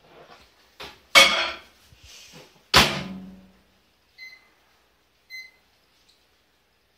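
Countertop microwave oven being loaded and started: a few knocks and two loud bangs as the cup goes in and the door is shut, then two short keypad beeps about a second apart.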